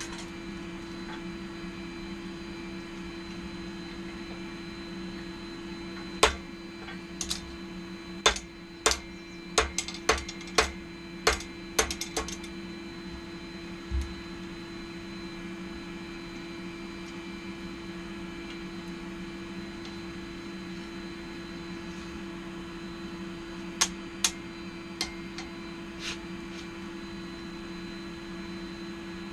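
Steady hum of a forge's air blower. About ten sharp knocks come in a quick run starting about six seconds in, then one more, and a few more near the end.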